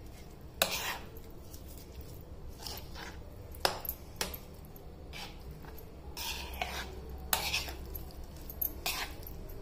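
A metal spoon mixing curd into cooked rice on a plate: irregular clinks and scrapes of the spoon against the plate, roughly one a second, with softer squishing between.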